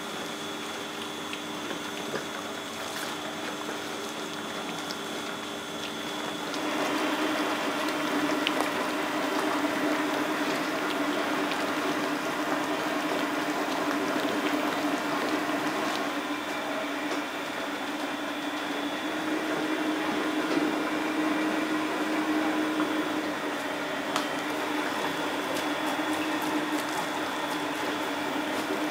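Curry roux factory machinery running steadily with a low hum and a liquid-like churn. It becomes louder and fuller about six seconds in.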